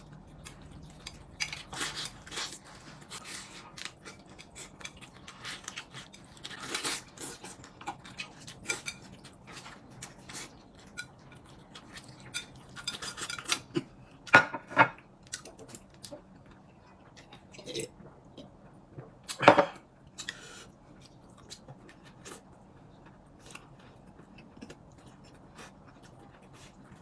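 Someone eating at the table: chewing, with scattered light clicks and clinks of utensils against dishes. Two louder clatters stand out, one about halfway through and a sharper one a few seconds later.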